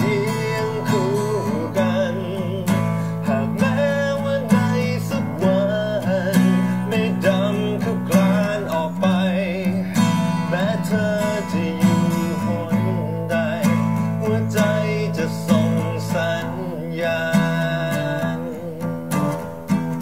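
Acoustic guitar strummed steadily, accompanying a man singing a Thai pop ballad with wavering vibrato on held notes.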